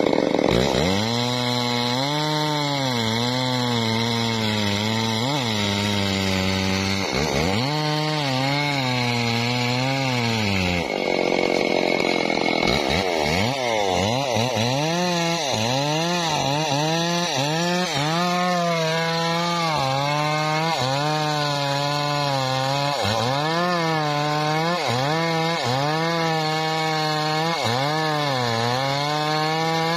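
Stihl two-stroke chainsaw cutting into the base of a standing teak trunk, the engine running under load throughout. Its pitch sags as the chain bites and climbs again, with a brief free-running rev about eleven seconds in and, over the second half, dips roughly every second and a half as the saw is worked through the cut.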